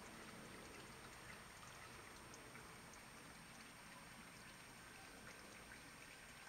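Faint, steady trickle of water spilling from a pumped filter tub's outlet into a small pond.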